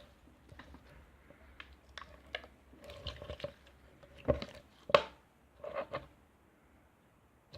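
Slime being squeezed and worked by hand, giving scattered short sticky clicks and squishy pops. They are busiest between about three and six seconds in, then stop.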